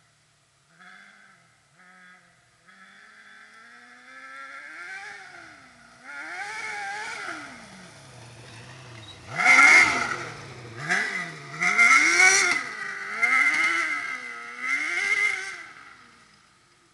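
600cc kart cross buggy's engine revving up and falling back again and again as it is driven, growing louder as it comes close. It is loudest with sharp high revs about ten seconds in and several more hard revs after that, then fades as it drives away near the end.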